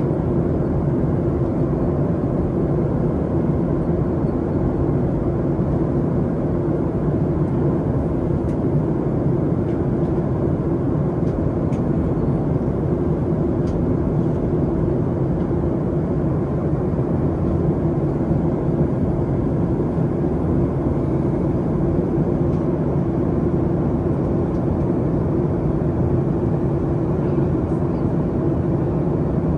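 Steady cabin noise inside a Boeing 737 MAX 8 in flight: an even rush of air with a steady low hum from its CFM LEAP-1B engines, unchanging throughout.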